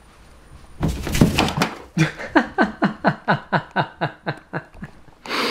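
A soft thump with a rustle about a second in, then a person laughing in a long run of short falling 'ha' sounds, about four a second.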